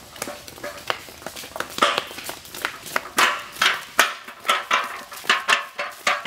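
Children's footsteps and the knocking of the metal cooking pots they carry as they walk: a run of sharp knocks and clatter, about two or three a second, loudest in the second half.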